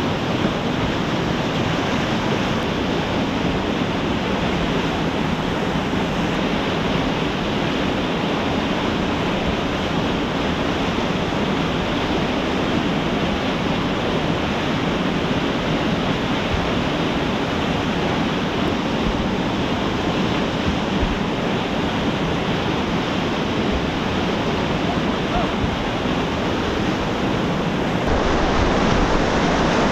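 River water pouring over a weir and churning as whitewater below it, a steady rushing that grows a little louder near the end.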